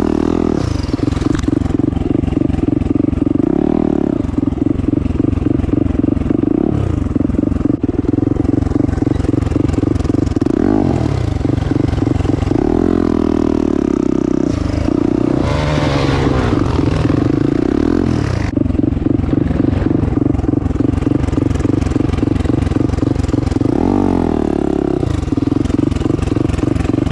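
Turbocharged 2021 Yamaha YZ450F single-cylinder four-stroke dirt bike being ridden, its engine running loud throughout, revving up and easing off again and again as the throttle is opened and closed.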